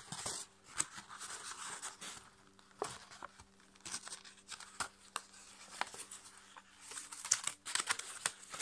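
Sheets of copy paper rustling and crackling as a paper airplane is folded and its creases pressed by hand. The crackles come thicker near the end.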